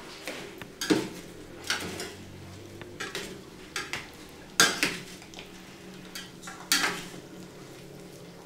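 A spoon stirring and scraping in a pot of spaghetti over a wood fire, knocking against the sides of the pot at irregular moments, loudest twice in the second half.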